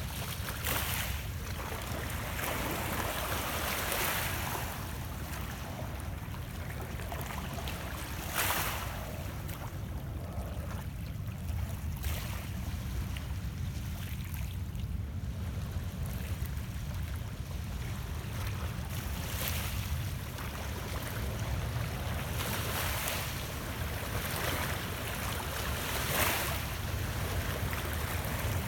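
Small Lake Ontario waves lapping and splashing against shoreline rocks, a soft wash every few seconds, over a steady low wind rumble on the microphone.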